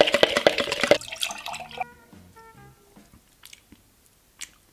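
Thick horchata concentrate sloshing and gurgling in a plastic jug for about a second, with a rapid run of drips and clicks. Then a few short music notes that fade away.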